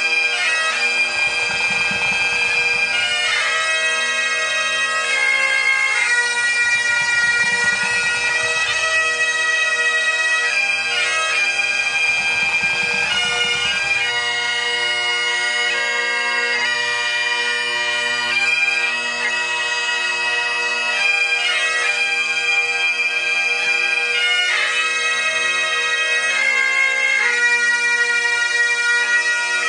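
Bagpipes playing a slow hymn tune: steady drones under a melody of long held notes that change every second or two.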